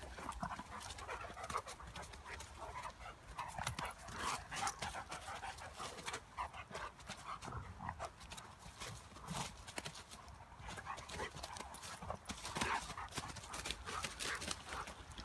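A dog panting, with a steady run of rustling and crunching steps on the forest floor.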